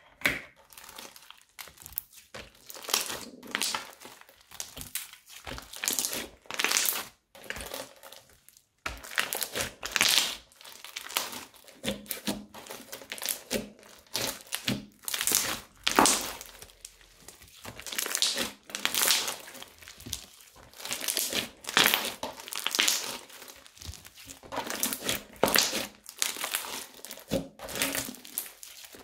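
Crunchy slime packed with small foam beads crackling and squelching as it is worked: first stirred with a spatula in a bowl, then, after a brief silence, kneaded, stretched and squeezed by hand, in irregular bursts of crackling about once a second.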